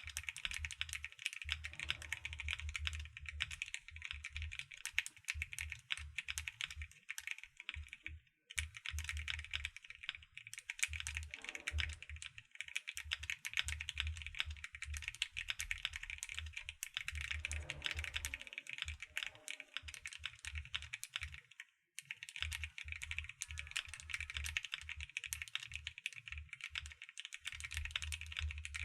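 Fast, continuous typing on an AKKO M1W mechanical keyboard in its stock kit, a dense run of keystrokes. The typing stops for a moment about eight seconds in and again about twenty-two seconds in.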